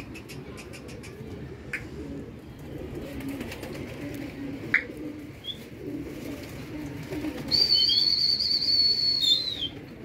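Domestic pigeons cooing in low, wavering notes, with two sharp clicks. Near the end a high, slightly warbling whistle is held for about two seconds and is the loudest sound.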